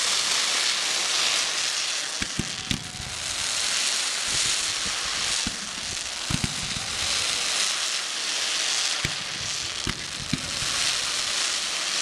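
Fireworks going off: a steady hiss of burning effects with scattered sharp bangs, about half a dozen over the stretch.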